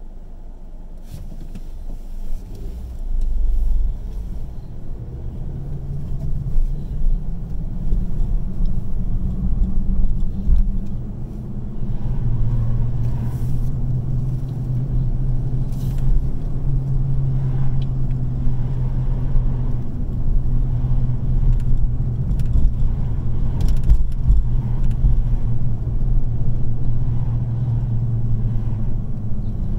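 Car engine and road noise heard from inside the cabin as the car pulls away from a stop at a traffic light a couple of seconds in, then drives along a city street at low speed with a steady low hum.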